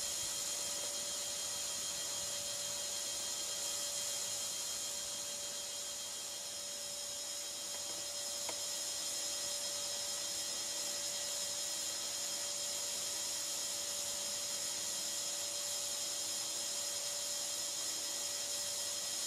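Steady hiss with faint steady hum tones underneath, and one faint click about eight and a half seconds in.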